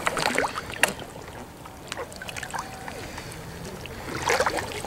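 Water splashing around a capsized sea kayak: a burst of splashes at first, then quieter lapping and small drips while the paddler hangs upside down, and splashing building again near the end as the Greenland paddle sweeps out for the roll.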